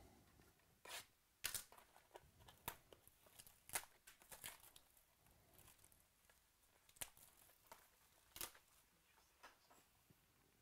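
Clear plastic shrink wrap being torn and peeled off a sealed box of trading cards: faint scattered crackles and rips, about half a dozen standing out.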